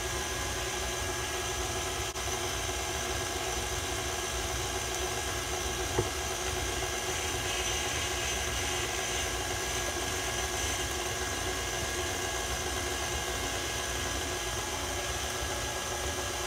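KitchenAid Classic Plus stand mixer running steadily, its wire whip beating cake batter in a stainless steel bowl: an even motor hum and whir, with a single click about six seconds in.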